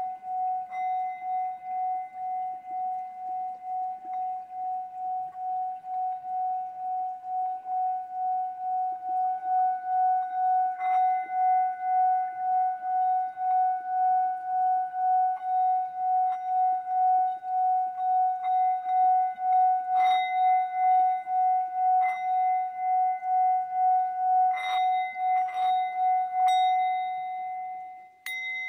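Hammered metal singing bowl sung by a wooden mallet rubbed around its rim: one steady ringing tone with a higher overtone, pulsing about twice a second and slowly growing louder. Several light clicks of the mallet against the bowl come in the second half; near the end the rubbing stops, the tone dies away, and the bowl is struck once.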